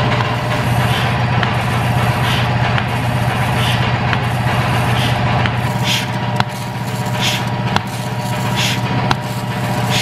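NuPulse milking machine at work: a steady hum from the vacuum pump, with the pulsator built into the claw giving a short rhythmic hiss about every 1.3 seconds as it alternates vacuum on the teat cups while milk flows.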